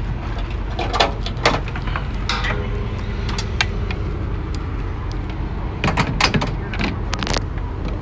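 Gear being handled in a work van: a plastic pump sprayer and its hoses are pulled off the rack, giving several clanks and knocks, with a quick cluster of them near the end. A steady low rumble runs underneath.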